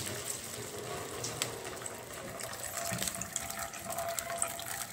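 Water poured in a thin stream from a plastic bowl of washed rice into a metal pot of fried onions, splashing steadily with small scattered pattering ticks.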